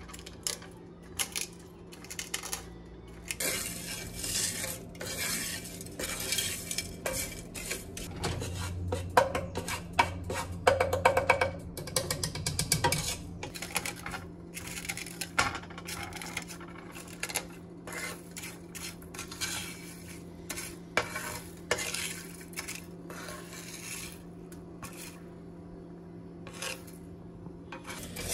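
Wooden spatula stirring and scraping crushed eggshells around a dry pan as they roast. The brittle shell pieces rattle and scratch against the pan in repeated strokes, with a quicker run of scraping about nine to thirteen seconds in.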